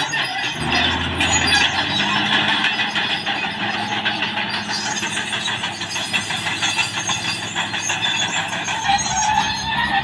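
Caterpillar D6R XL bulldozer working, its diesel engine running steadily, with a dense clatter from the machine over it.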